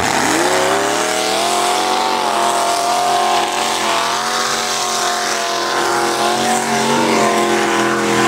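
Lifted mud truck's engine revving up sharply, then held at high revs with small rises and falls.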